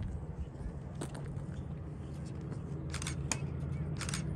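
Outdoor background noise: a steady low rumble, with a few short scuffs or rustles about three and four seconds in.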